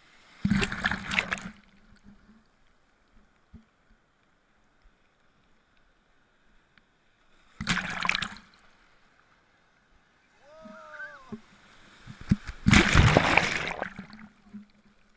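Ocean surf splashing and washing over a camera held at the waterline. There are three loud rushes of water: about half a second in, at around eight seconds, and from about twelve to fourteen seconds, with much quieter stretches between. A brief voice-like call rises and falls around eleven seconds.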